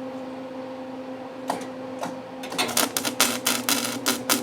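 Flux-core wire welder arc crackling in short, sputtering bursts: a couple of single cracks, then from about two and a half seconds a fast, irregular run of bursts, over a steady hum. The arc is stuttering and keeps breaking off, and the welds are coming out poorly.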